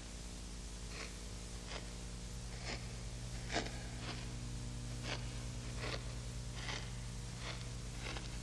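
A person's short breaths, about one a second, over a steady low hum.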